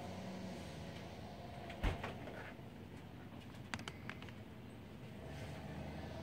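Steady low background hum with a few sharp clicks or taps: a loud one about two seconds in and a quick run of three or four near the middle.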